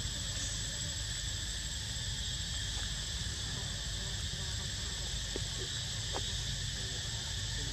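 Steady insect chorus, an even high-pitched drone, over a low steady rumble. A couple of faint short chirps come about two-thirds of the way through.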